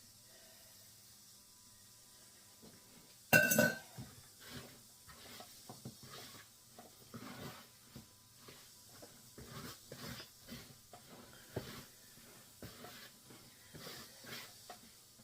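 Danish dough whisk stirring a wet bread dough in a mixing bowl, with irregular clicks and scrapes against the bowl. One loud ringing clank comes about three seconds in.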